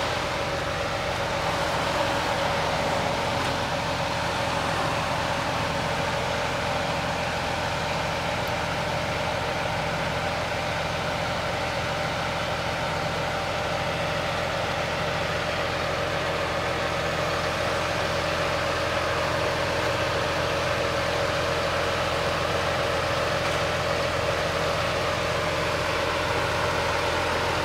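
Scania P 400 truck's diesel engine idling steadily while it drives the loader crane's hydraulics, as the knuckle boom folds in, with a steady whine over the engine drone.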